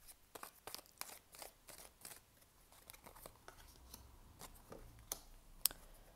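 A deck of oracle cards being shuffled and handled, giving a faint run of light, irregular papery clicks and snaps, with one sharper snap near the end.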